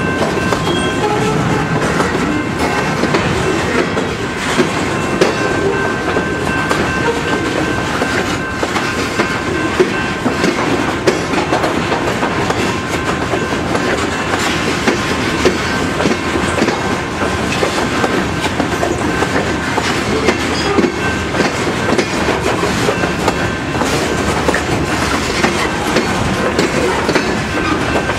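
Freight train's covered hopper cars rolling past close by, steel wheels clicking steadily over rail joints under a continuous rumble, with a thin steady high-pitched tone running underneath.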